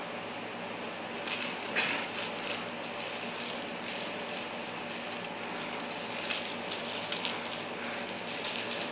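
Steady room hiss with a few light clicks and ticks, the sharpest nearly two seconds in: a small dachshund puppy's claws on a laminate floor as it moves about.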